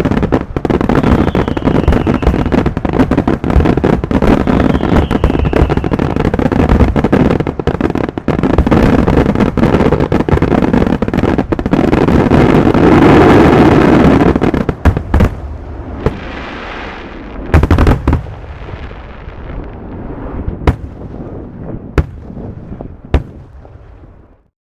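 Fireworks display: a dense barrage of rapid bangs and crackling, with a few falling whistles early on. It is loudest just past the middle, then thins to a few single loud bangs and dies away.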